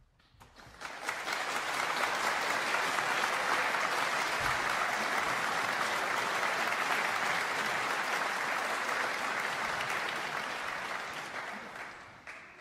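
Audience applauding in a concert hall after a piano performance: the clapping starts soon after the piano has fallen silent, swells to a steady level within a second or two, and tapers off near the end.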